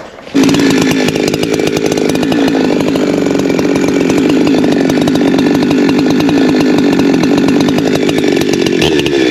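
Holzfforma G372XP Pro two-stroke chainsaw coming in abruptly just after the start and running steadily at full throttle, cutting into an ash tree being felled.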